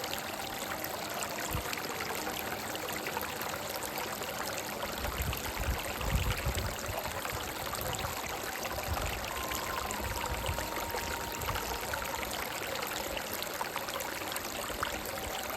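A rocky stream running with a steady rush and trickle of water, with a surge of deeper low rumble about five to seven seconds in. A soft melody of long held notes sits faintly underneath.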